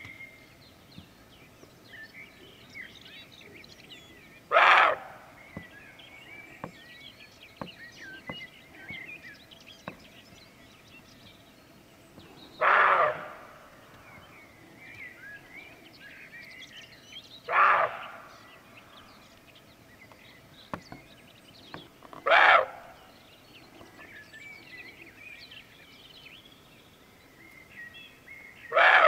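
Roe deer barking in alarm: five short, harsh barks several seconds apart, with small birds chirping faintly between them.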